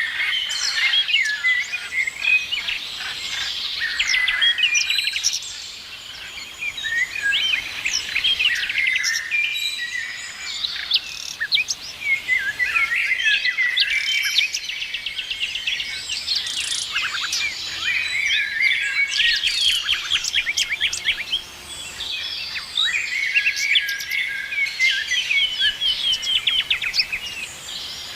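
Several songbirds chirping and singing together, a busy overlapping chorus of short calls and fast trills.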